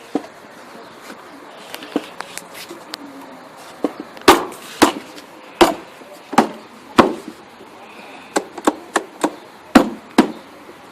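A series of about a dozen sharp knocks at uneven intervals, like a pressure washer pump's parts being tapped or hammered into place during reassembly; a few scattered ones at first, then loud, irregular blows from about four seconds in.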